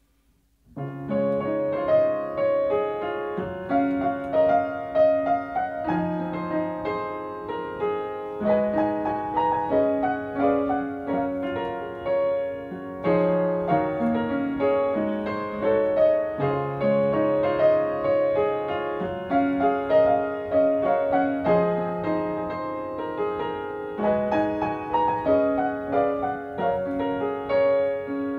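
Upright piano played solo, a melody over held chords, starting about a second in.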